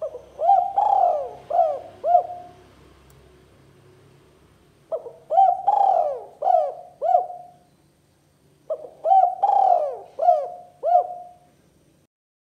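Spotted dove (tekukur) cooing: three phrases a few seconds apart, each a run of about five coos whose notes rise and fall in pitch. This is a tekukur call played as a lure for rival doves.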